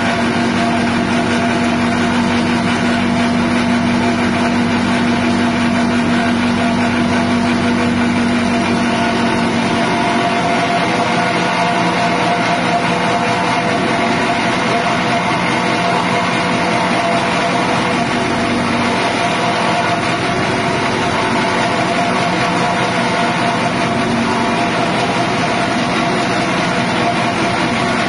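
Grass chopper driven by a 6.5 hp petrol engine running steadily under load while its blades shred elephant grass fed into the side inlet. A low hum in the machine's tone fades out about ten seconds in.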